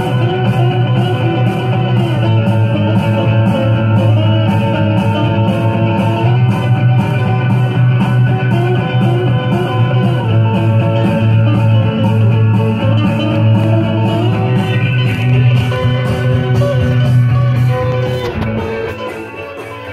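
Guitar-led 1960s rock music playing from a 45 rpm vinyl single on a turntable, with a steady beat; the music drops a little in level near the end.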